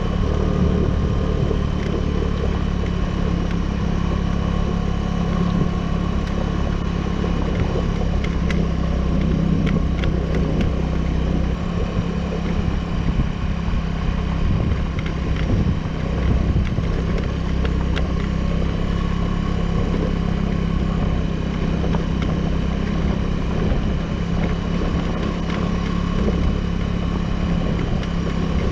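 Suzuki Burgman 200 scooter's single-cylinder engine running steadily under way on an uphill ride, with a few light clicks and rattles.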